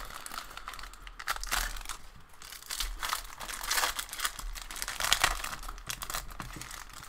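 Wrappers of 2017/18 Upper Deck SP Authentic hockey card packs crinkling and rustling as the packs are handled and opened by hand, in a run of irregular crackles.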